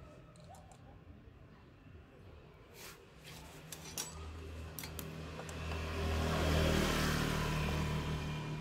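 A passing vehicle's engine hums up, loudest about six to seven seconds in and easing off by the end. Over it come a few light metallic clicks and taps from a socket tool being set on the cam sprocket bolts of a motorbike engine.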